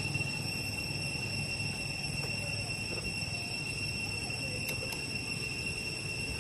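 A steady high-pitched drone over a low background rumble, with a few faint short calls and a single soft click near the end.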